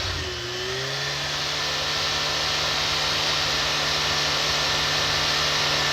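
Kawasaki Ninja H2 SX SE's supercharged inline-four engine revved in place: the revs climb a little in the first second, then are held steady at a high rev with a loud rushing hiss over the engine note.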